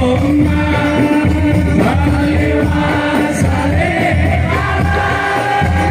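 Live sholawat singing: a sung male voice, with other voices joining, over instrumental accompaniment.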